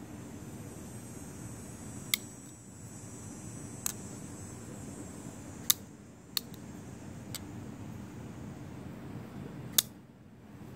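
Shirogorov F95 flipper knife being flipped open and closed: six sharp metallic clicks, irregularly spaced, as the blade snaps into its stop and clicks shut. The loudest clicks come about two seconds in, just before six seconds, and near the end.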